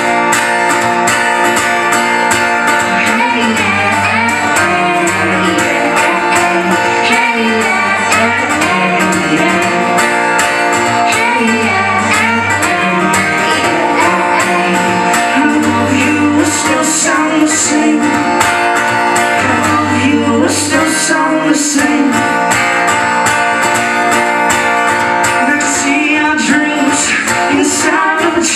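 Live band music: strummed guitar with a steady bass and vocals singing.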